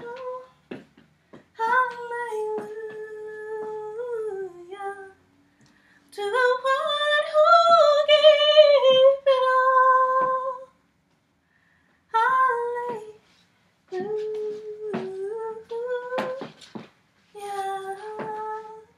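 A woman singing unaccompanied in slow phrases of long held notes, with short pauses between them, the longest and loudest phrase in the middle. Faint clicks and taps sound between the phrases.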